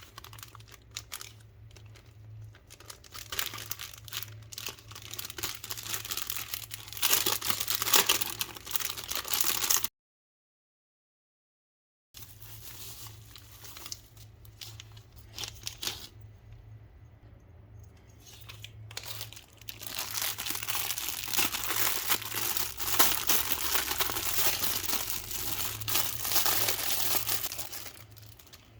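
Plastic packaging crinkling and rustling as parcels are handled and torn open, in irregular swells, cutting out completely for about two seconds partway through.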